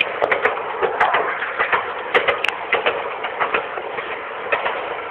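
Amusement-park ride train running: a steady rattling noise with many irregular clicks and knocks.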